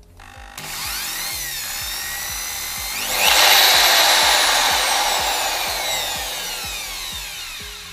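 Electric drill's brushed motor run off the trigger speed regulator. It spins up at low speed, climbs sharply to high speed about three seconds in, then slows gradually with falling pitch until it stops near the end. The variable-speed control is working again after the regulator was cleaned.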